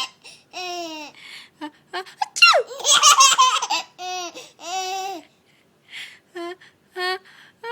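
A baby laughing hard in several bursts of high-pitched laughter, the loudest cluster about two and a half seconds in, laughter set off by someone's sneezes.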